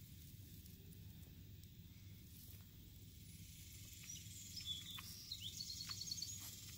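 Faint crunching clicks of a tortoise biting and tearing grass, over a low steady outdoor hum, with a short run of high chirps about two-thirds of the way through.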